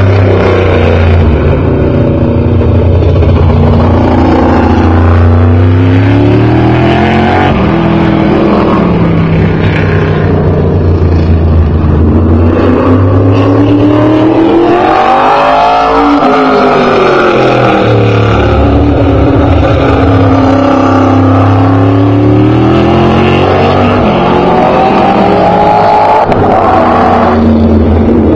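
Open-wheel modified race car's engine lapping a short oval alone at speed. Its pitch climbs along each straight and drops away into the turns, with a sharp fall in pitch as it passes close by about halfway through.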